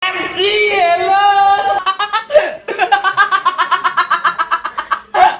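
A short voice sound with a sliding pitch, then hard laughter: a long, rapid run of ha-ha pulses.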